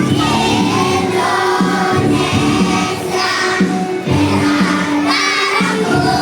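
A children's choir of elementary-school pupils singing with instrumental accompaniment, the low notes of the accompaniment held under the voices.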